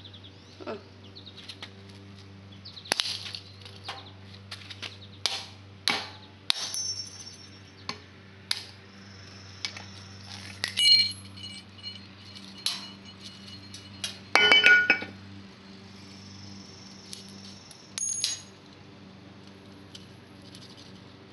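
An electric heater's glass bulb being cracked and broken: a string of sharp taps and knocks with glass clinking, and a few bright ringing clinks of broken pieces around the middle.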